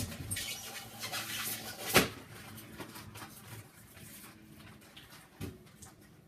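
Hands handling a plastic RC skid-steer toy while taking its battery out: rubbing and scraping of plastic, a sharp click about two seconds in, and a softer knock near the end.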